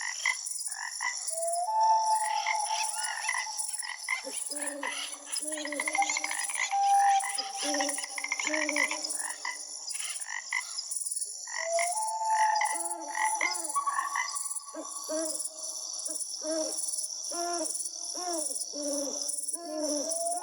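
A forest wildlife chorus: birds singing with whistled notes and quick trills, mixed with many short, repeated low calls, over a steady high-pitched hum.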